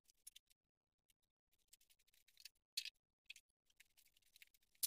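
Near silence with a few faint, short clicks and scrapes, the loudest nearly three seconds in: small handling noises of tools and parts during work on the engine.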